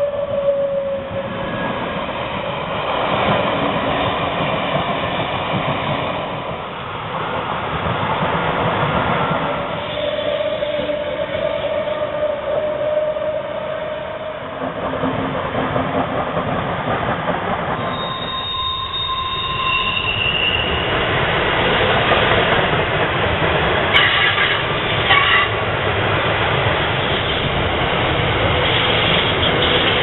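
Double-deck electric passenger trains rolling past on the track, with a thin steady whine from the wheels. About 18 seconds in come short high-pitched wheel squeals. After that a container freight train passes, louder, with sharp knocks from its wagons.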